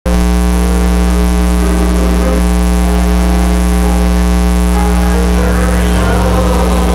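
Loud, steady electrical mains hum, a buzz with many overtones. About five seconds in, a choir singing with instruments begins faintly beneath it.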